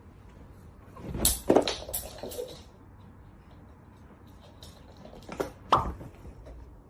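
A few sharp knocks and clatters: a cluster about a second in, then two more near the end.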